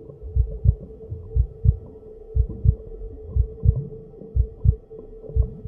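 Human heartbeat, a double lub-dub thump repeating about once a second, six beats in all, over a steady low hum.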